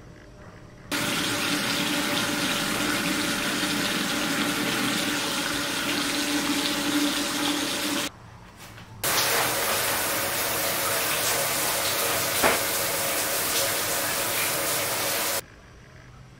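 Bathroom tap running into a sink in two long stretches, each starting and stopping abruptly, with a short break about eight seconds in.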